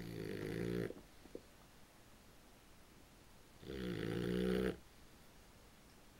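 Boxer puppy snoring in its sleep: one snore ends just under a second in, and another, about a second long and growing louder, comes about three and a half seconds in.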